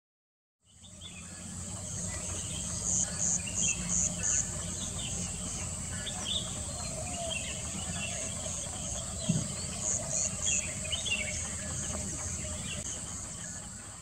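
Field ambience that fades in after about half a second of silence. Crickets or similar insects keep up a steady high drone with runs of short chirping pulses, small birds make scattered short chirps, and a low rumble runs underneath.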